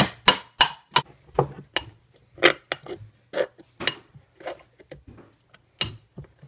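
Hammer striking a nail into a thin metal jar lid to punch a hole: quick metallic blows, about three a second, in the first second. Then scattered clicks and taps as the nail is worked around in the hole by hand.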